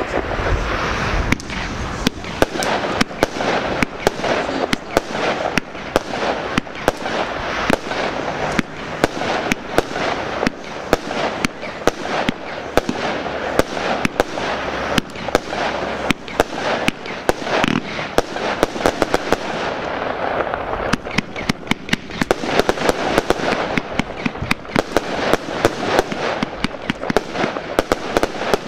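Aerial fireworks going off continuously, a steady crackle broken by many sharp bangs of bursting shells. The bangs come thicker and faster in the last third.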